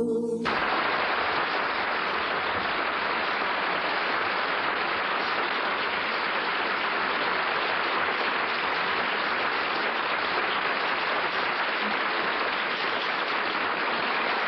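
Audience applauding steadily. The last of the music cuts off about half a second in.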